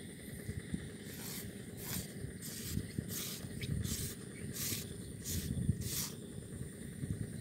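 Eight soft swishing rustles at an even pace, about three every two seconds, over a low rumble of wind on the microphone.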